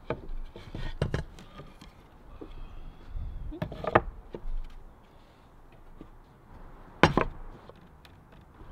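Plywood cabinet panels knocking against the melamine cabinet base and the worktable as they are handled and set in place. There are several sharp wooden knocks with quiet gaps between them, the loudest about seven seconds in.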